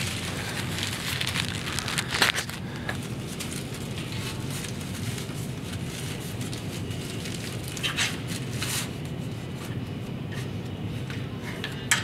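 Paper shop rag crinkling and rubbing as it is poked into the table saw's blade-elevation shaft bore with a thin metal tool, with a few sharp clicks about two seconds in, near eight seconds and at the end, over a steady low hum.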